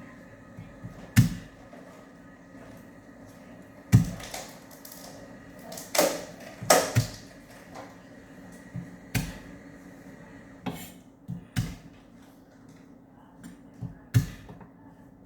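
Irregular sharp knocks and clatter of kitchen things being handled, about eight or nine over the stretch, over a faint steady hum.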